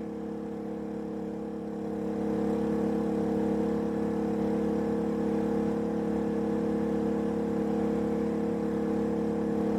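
Genmax GM3500iAED inverter generator running steadily under the load of two RV air conditioners, a steady engine hum that gets a little louder about two seconds in.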